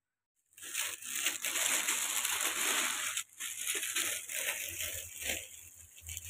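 Clothing-shop ambience: a dense, noisy rustling hiss that starts suddenly about half a second in, after silence.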